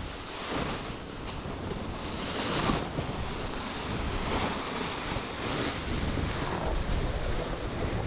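Wind buffeting the microphone over the rush of sea water around a sailboat under way, with a few swells of louder noise.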